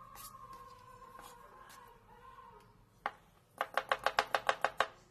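Kitchen knife finely chopping cucumber on a plastic cutting board: a single tap about three seconds in, then a quick, even run of about a dozen chops, some eight a second. Before the chopping, a faint steady tone hums in the background and fades out.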